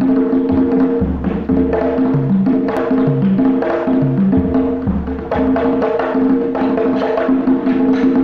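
Kpanlogo hand drums played with bare palms and fingers, a fast freestyle solo in a 6/8 adowa groove of quick slaps and open tones. Underneath runs a steady pitched accompaniment with low notes changing in time with the rhythm.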